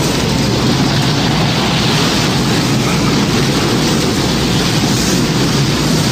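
Steady, loud rushing and rumbling noise of a storm at sea: wind and waves around a ship in a hurricane.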